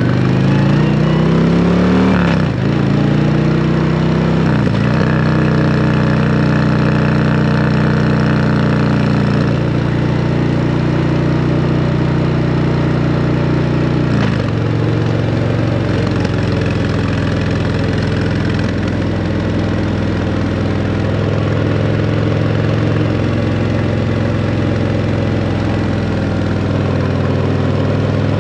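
2024 Harley-Davidson CVO Road Glide ST's Milwaukee-Eight 121 V-twin running through a Screaming Eagle exhaust while riding: the engine note climbs in pitch twice in the first five seconds, dropping at each upshift, then holds steady at cruise with another drop in pitch about halfway through.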